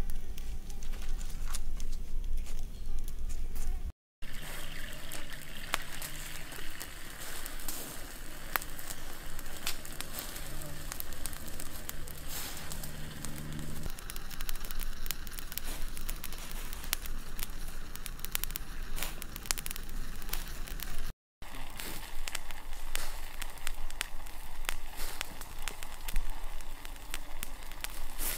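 Open wood fire crackling with scattered small pops, and a fly buzzing close by for about ten seconds in the first half.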